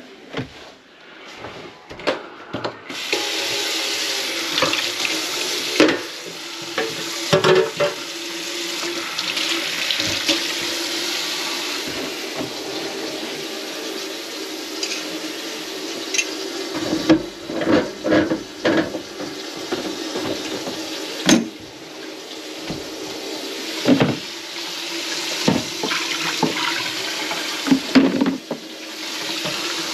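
Kitchen faucet running steadily into the sink, coming on about three seconds in, with scattered knocks and bumps throughout.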